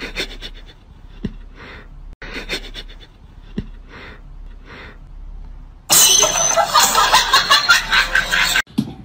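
Cat sniffing at a socked foot, a run of short breathy sniffs. About six seconds in, a loud, harsh noise lasts a couple of seconds and cuts off abruptly.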